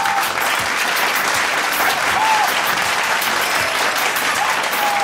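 Theatre audience applauding steadily, a dense sustained clapping.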